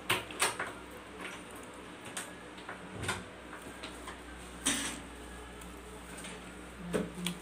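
Metal knife and fork clinking and scraping on a plate as a fried beef meatball is speared, then mouth and chewing sounds as it is eaten, with a scatter of sharp clicks and one louder noise just before five seconds in.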